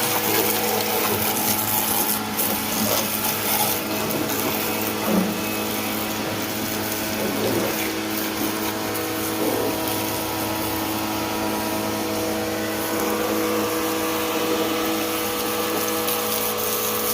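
Inalsa 2000-watt electric pressure washer running steadily: a constant motor and pump hum with the hiss of the water jet spraying a car.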